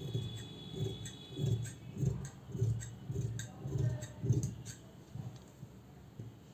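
Large tailor's shears cutting through fabric: about eight snips in steady succession, each a short crunch with a click of the blades, stopping about five seconds in.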